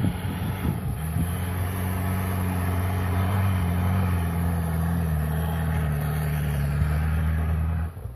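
Opel SUV engine running hard at steady, high revs as it ploughs and slides through deep snow, the note dropping away sharply near the end.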